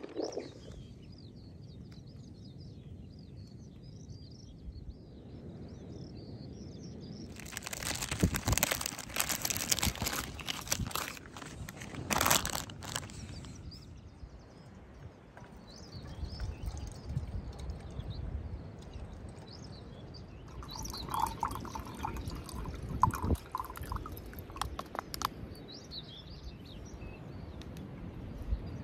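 Small birds chirping over a steady low rumble of wind on the microphone. About eight seconds in comes several seconds of loud crinkling and rustling, with more rustles later on, as the food and coffee packaging is handled.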